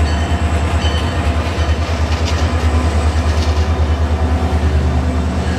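CSX diesel locomotive passing close by, with a loud, low, rapid and even throb.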